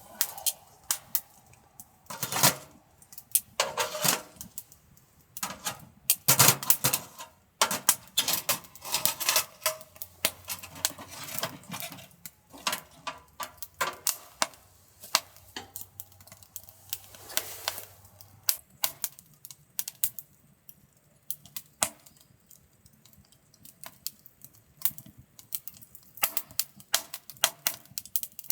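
Wood fire crackling and popping, with irregular sharp snaps of varying loudness.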